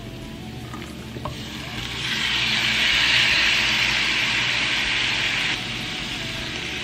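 Minced garlic sizzling softly in hot oil in a frying pan. About two seconds in, raw chicken pieces go into the pan and the sizzle turns much louder, then eases off a little after about three seconds.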